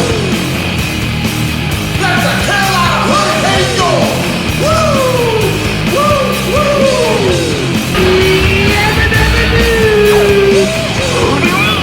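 Hockey goal song: loud rock music with yelled, sliding vocal lines over a heavy beat.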